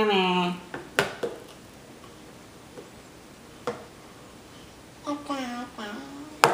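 A voice making wordless, drawn-out funny noises: a held tone that breaks off about half a second in, then a wavering, pitch-bending sound about five seconds in. Sharp clicks fall between them and just before the end.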